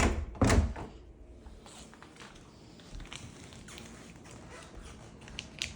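A house door being shut after a cat is let out: two sharp knocks about half a second apart. After that the room is quiet apart from a few faint small taps.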